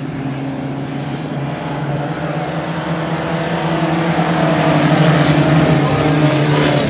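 A pack of racing pickup trucks running around the oval, the engines growing louder as the trucks come past close by about four to six seconds in.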